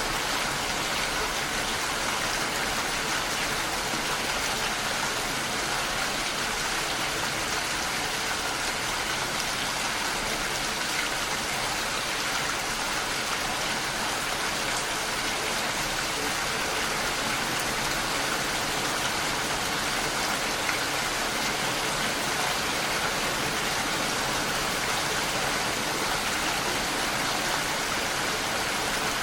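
Steady, even rain falling, with no pauses.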